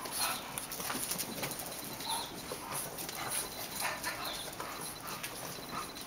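Bulldog puppy vocalising in a string of short whines and yips.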